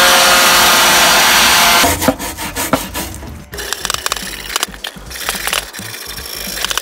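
A cordless blower runs steadily with a whine, then cuts off about two seconds in. From about halfway through, a stiff brush scrubs in quick, scratchy strokes over the rusty, oily sheet-metal base of a kerosene heater.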